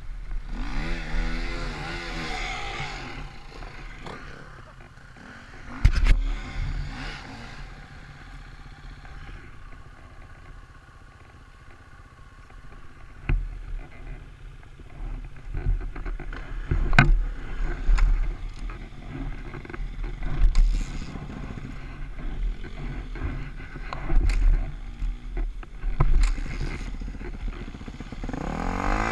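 Kawasaki dirt bike engine revving and falling back in the first few seconds as the bike slows, then running low while the bike stands, with a string of sharp knocks and thumps in the second half; the engine revs up again at the very end as the bike pulls away.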